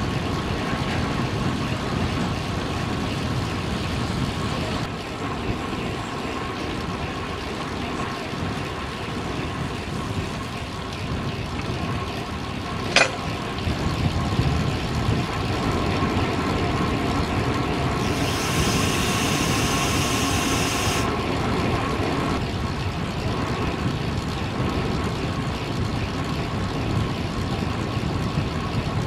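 Steady wind and road noise from riding a bicycle, with traffic in the background. There is a single sharp click about 13 seconds in and a brief high hiss lasting about three seconds past the middle.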